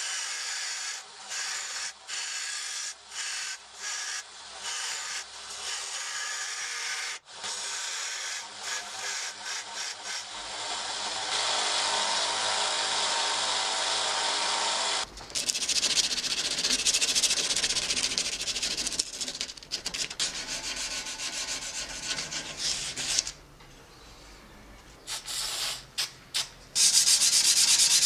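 A steel cleaver blade is being sanded, at first in a run of short strokes about a second each. Then the blade is sanded steadily on a narrow belt sander, growing louder partway through. After a short quieter gap, loud steady sanding resumes near the end.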